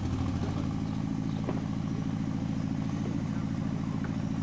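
A vehicle engine idling with a steady low hum that does not rise or fall.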